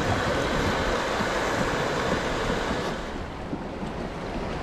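Wind buffeting the microphone over waves washing, a steady rushing noise that eases slightly about three seconds in.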